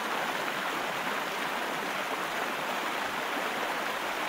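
Steady rushing hiss of water jets spraying: the car wash's power jets running.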